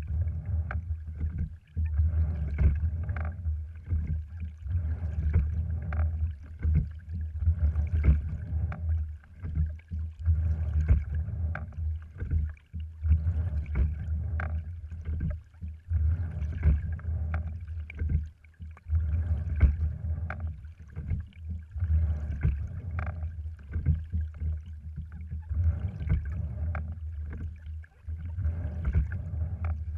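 A cloth-skinned cedar rowing wherry under way: water rushing along the hull as the oars work, with frequent clicks and knocks from the rowing rig over a steady low rumble.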